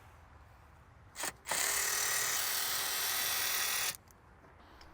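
Cordless power drill/driver running steadily for about two and a half seconds after a brief blip of the trigger, backing out the fasteners of an engine air intake box.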